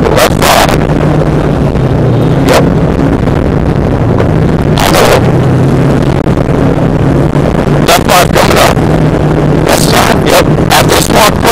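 Cabin sound of a rally-prepared Subaru Impreza's swapped-in WRX turbocharged flat-four running hard on a rough gravel stage, its drone rising and falling in pitch with throttle and gear changes. Sharp, loud clattering knocks break in several times as stones and bumps strike the car.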